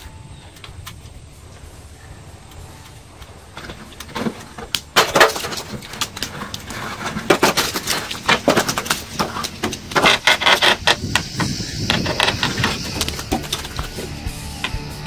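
A soffit panel being worked loose by hand from a house eave: a run of clicks, knocks and rattling scrapes that starts about four seconds in and comes in bunches, busiest around five and ten seconds in.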